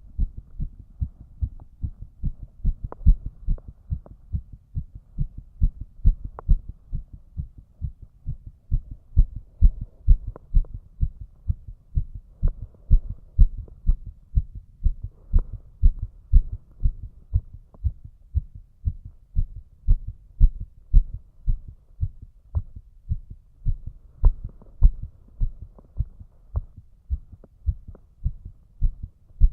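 A man's heartbeat, slightly fast, heard as a steady run of low, regular thumps.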